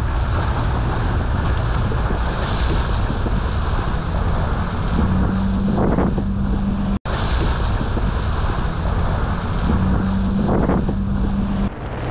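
Wind buffeting the microphone and sea water washing around a small fishing boat, with a steady low engine hum underneath. The sound cuts out for an instant about seven seconds in.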